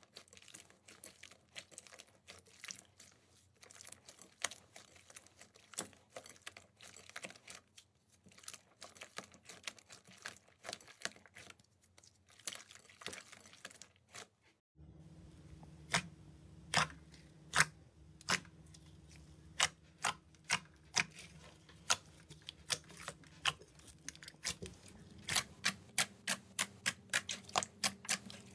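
Hands squishing and kneading clear slime, making a run of sharp wet clicks and pops. About halfway through a faint low hum comes in underneath, and the pops become more regular and quicker near the end as fingers press into a sheet of slime.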